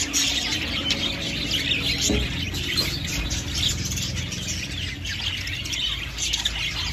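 Budgerigars chattering: a continuous stream of quick, scratchy chirps and warbles over a low steady hum.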